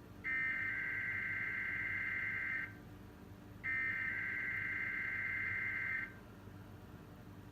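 Emergency Alert System SAME header data bursts of a Required Weekly Test, played from a TV broadcast: two buzzy digital screeches, each about two and a half seconds, a second apart.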